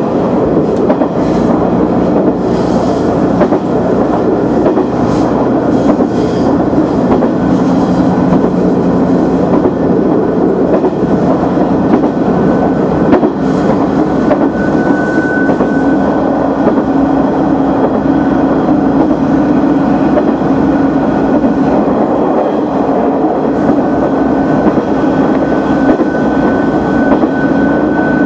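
KiHa 100 diesel railcar running along the track: a steady engine drone mixed with wheel-on-rail noise and a few clicks over the rails. A thin steady whine joins about halfway through.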